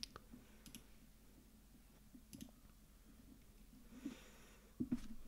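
A few faint, sharp computer mouse clicks, spread out over quiet room tone.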